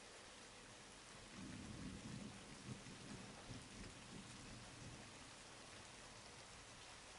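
Rain falling with a steady hiss, and a faint, low rumble of thunder that swells about a second in and dies away over the next few seconds.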